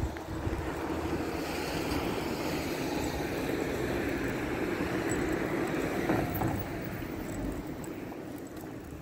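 A vehicle passing by: a steady noise that builds over several seconds, peaks about five to six seconds in, then fades away.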